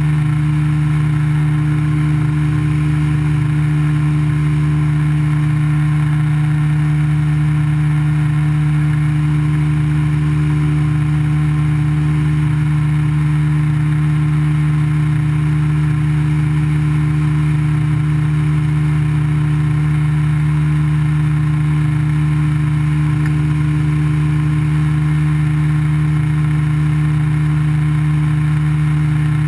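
Engine of an open-cockpit ultralight aircraft droning steadily in level cruise, holding one unchanging pitch.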